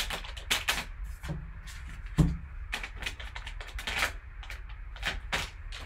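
Plastic wrapping of a sealed trading-card pack crinkling and tearing as gloved hands rip it open, in a run of sharp crackles. A louder thump comes about two seconds in.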